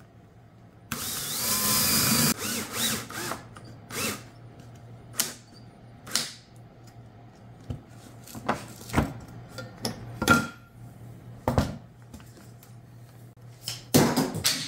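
Cordless drill runs for about a second and a half, then a string of separate sharp knocks and clicks of wooden pieces being handled.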